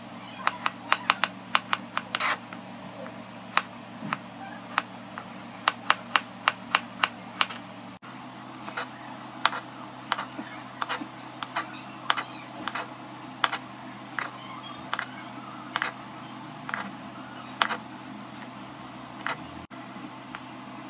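Kitchen knife chopping through fruit onto a plastic cutting board: sharp, irregular taps, several a second at first, then sparser, as apple is diced, grapes halved and a banana sliced. A low steady hum runs underneath.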